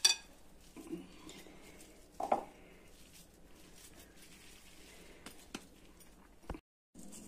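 Oiled hands handling and pressing a soft mashed potato and vegetable mixture in a glass bowl: quiet squishing and patting, with a sharp click at the start and a few small knocks. The sound cuts out completely for a moment near the end.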